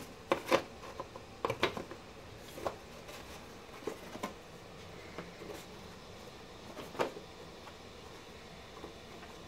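Scattered light taps and knocks of white foam pads being set down and shifted on the cell stacks and metal rails of a hybrid battery pack. There is a cluster of taps in the first two seconds and a sharper one about seven seconds in.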